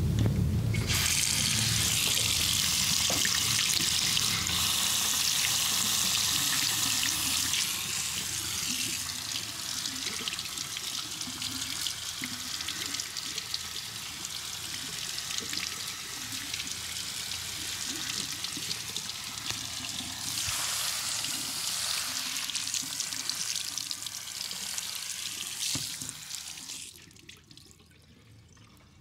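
Running water splashing steadily, starting about a second in and stopping near the end.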